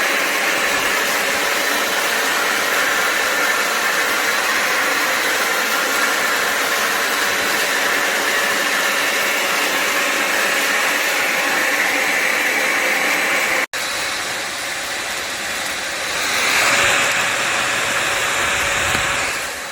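Bissell Symphony Pet steam mop and vacuum's motor running: a steady whine over rushing air. It cuts out for an instant about 14 seconds in and comes back quieter, swelling briefly a few seconds later.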